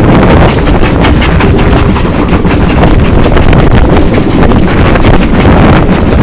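Churchward Mogul 5322 and Collett 2-8-0 3850 double-heading a train and working hard, their exhaust beats coming thick and fast, heard from a carriage window just behind the tenders. Heavy wind buffeting on the microphone runs underneath.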